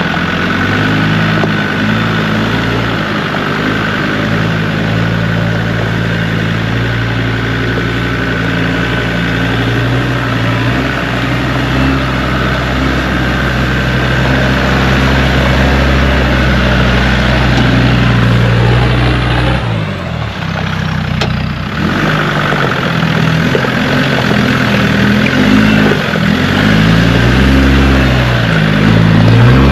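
Land Rover Discovery 2 Td5's five-cylinder turbodiesel engine working at low revs as the vehicle crawls over a rocky track. Its note rises and falls with the throttle and grows louder near the end as it comes close. The sound drops out briefly about two-thirds of the way in.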